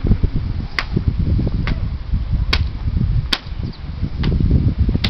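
A rally of matkot beach paddleball: about six sharp cracks of the wooden paddles striking the ball, a little under a second apart, over a low rumble of wind buffeting the microphone.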